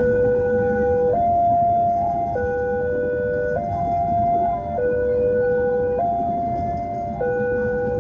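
Railway level-crossing warning alarm sounding: two electronic tones, a lower and a higher, alternating back and forth about every second, over a steady rumble of street noise.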